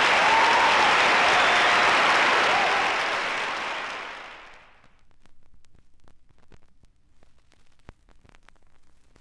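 Live theatre audience applauding, dying away about four or five seconds in. Then faint scattered clicks and crackle of vinyl record surface noise.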